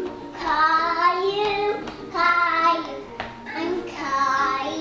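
A young boy singing in three drawn-out phrases, with a short click just after the middle.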